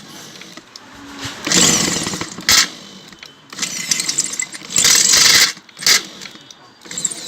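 Handheld electric drill run in bursts, two longer and two brief, its largest bit boring out the hole left by a rusted bolt in a pressure cooker's handle bracket.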